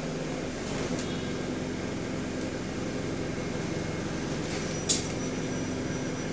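Steady drone and hum of an Alexander Dennis Enviro400 MMC double-decker bus, heard from inside the bus, with a faint high whine. A single sharp click about five seconds in.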